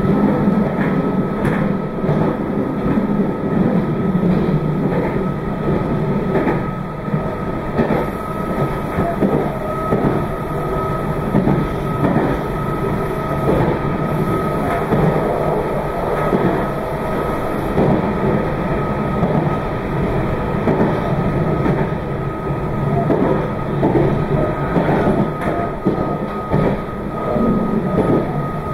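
Meitetsu 2200 series limited express train running at speed, heard from inside the front car: steady wheel and running noise with frequent clicks as the wheels cross rail joints, and a steady high whine throughout.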